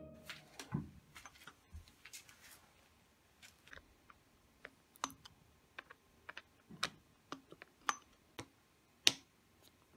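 Irregular light metallic clicks and taps of a hand tool working the bolt of a bicycle seat post's saddle clamp, with one sharper click a little after nine seconds.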